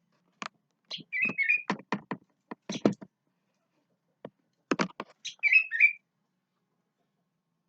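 Sooty-headed bulbul giving two short warbling phrases, about a second in and again about five and a half seconds in, with a string of sharp clicks and knocks between them.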